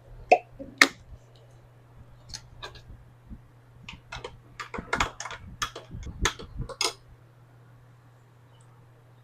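Sharp clicks and clinks of a coffee glass and cream container being handled while cream goes into iced coffee. There are two loud clicks near the start, then a busier run of clinks from about four to seven seconds in, over a faint steady hum.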